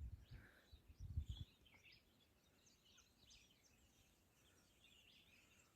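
Faint, distant birdsong: many small chirps scattered throughout, with two brief low rumbles of wind or handling on the microphone in the first second and a half.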